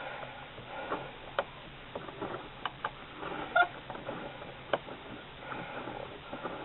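Scattered small clicks, taps and rustling as a friction-fire baseboard made of two tied-together sticks is handled and untied to be taken apart.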